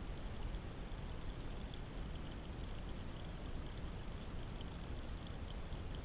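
Water from a small rock waterfall trickling and splashing steadily over stones, with faint high ticks of drips. A brief high thin tone sounds about three seconds in.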